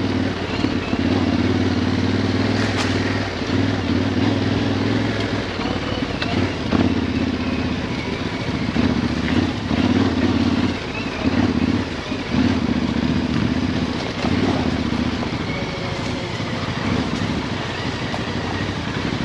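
Yamaha Ténéré 700's parallel-twin engine running at low revs off road, the throttle opening and closing so the note swells and dips, with a few sharp knocks from the bike over rough ground.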